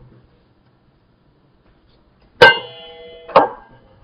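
A stainless steel mixing bowl knocked twice, about a second apart. After the first knock it rings with several clear steady tones that die away.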